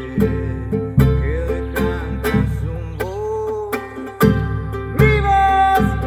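Acoustic music without singing: plucked string instruments strummed in a steady rhythm over a bass, with a held melodic line rising over them in the second half.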